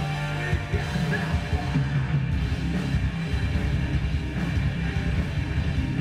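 Rock music with drums and a heavy, fast-pulsing low end.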